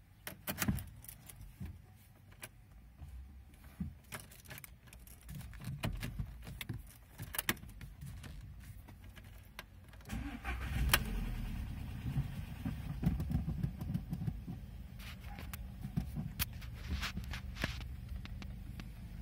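Keys clicking and jangling at the ignition, then the Audi A3 8P's engine cranks and starts about ten seconds in and settles into a steady idle.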